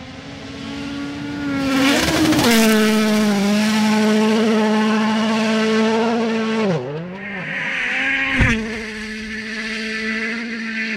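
Rally car engines at high revs on a gravel stage, the note held steady for several seconds and dropping sharply as the driver lifts or shifts. A single sharp bang about eight and a half seconds in.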